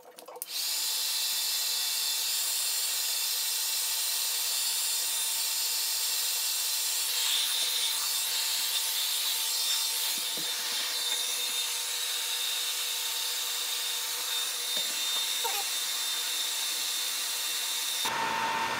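Handheld hairdryer running steadily, a constant rush of air with a faint steady whine, switched on abruptly about half a second in.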